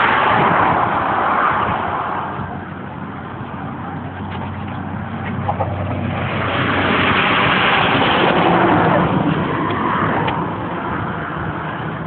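Road traffic passing on a highway bridge: the rush of cars swells and fades twice, loudest near the start and again from about six to nine seconds in, over a low steady hum in the first half.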